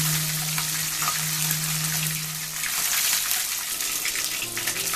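A flour-coated whole fish frying in hot oil in a wok on low flame: the oil sizzles and crackles steadily while hot oil is spooned over the fish. A low steady hum stops about three seconds in.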